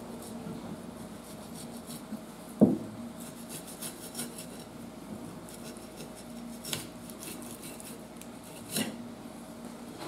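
Kitchen knife scraping along a plastic cutting board as the skin is stripped from a black sea bream fillet. There is one sharp knock about two and a half seconds in and two lighter knocks later, over a steady low hum.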